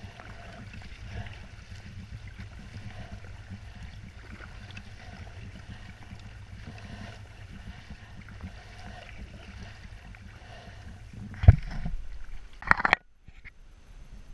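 Double-bladed kayak paddle dipping and splashing through the water in steady strokes about once a second, over a low steady rumble. Near the end there is one loud knock, then a second clatter about a second later, and after that the sound drops suddenly to a quiet hush.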